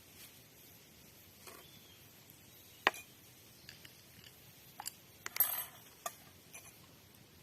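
Scattered sharp clicks and light clinks, like small hard objects being handled: one loud click about three seconds in, a few faint ticks after, and a short cluster of ringing clinks a little past the middle.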